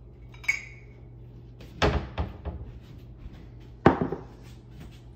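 Cups and cupboard knocking and clinking while someone searches for a cup: a light glassy clink, then a few sharp thuds, the loudest about four seconds in.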